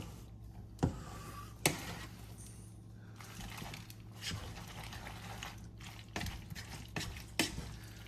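Utensil stirring thick, cheesy pasta in a pan on the stove: wet, sticky squelching and scraping, with two sharp clacks of the utensil against the pan about a second in and again shortly after.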